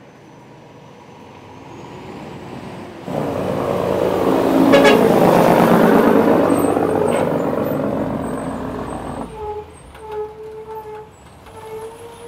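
Heavy truck driving past, its engine growing louder and then fading away.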